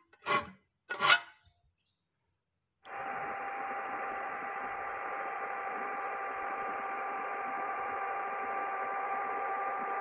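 A steel hand file rasping across the teeth of a rusty handsaw blade as they are sharpened, two strokes in the first second and a half. About three seconds in, a steady hum-like hiss with two faint even tones starts and carries on unchanged.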